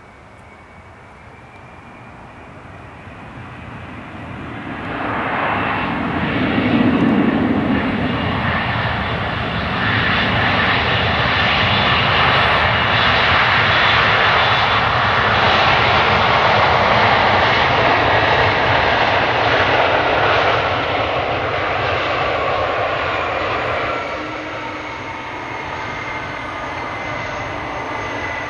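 Boeing 767-300ER's twin jet engines during its landing roll. The engine noise swells sharply about five seconds in and stays loud through the middle as reverse thrust slows the aircraft, then eases off about twenty-four seconds in.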